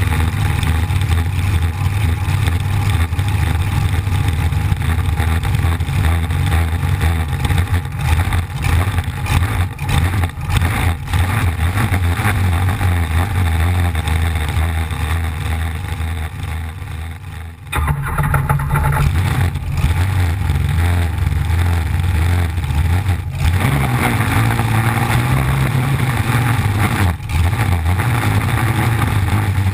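Engine of a V-drive flat-bottom K racing boat running hard at speed, over rushing wind and water spray. A little over halfway through, the engine sound fades for a couple of seconds and then suddenly comes back on.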